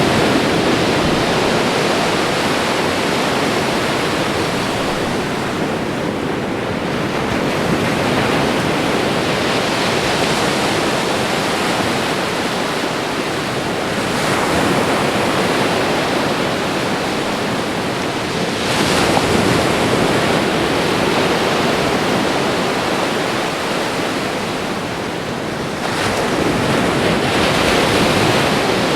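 Ocean waves washing onto a shore: a continuous rush of surf that swells and eases every few seconds. Fresh waves come in more sharply about two-thirds of the way through and again near the end.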